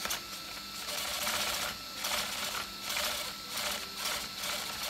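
RC buggy's high-voltage steering servo buzzing in several short bursts as the steering is worked back and forth to check its direction.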